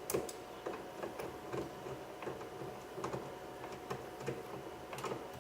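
Hand ratchet with a 10 mm socket and extension clicking as it backs out a door-panel bolt: light, irregular ticks, a few a second.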